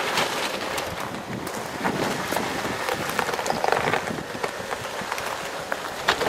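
Loose quarry rock and gravel crunching and crackling under the tyres of a Jeep Wrangler Rubicon crawling slowly downhill, with many small clicks and pops of shifting stones.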